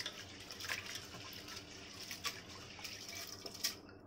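Split lentils being washed by hand in water inside an aluminium pressure cooker: water swishing and sloshing, with a few sharp clinks against the pot.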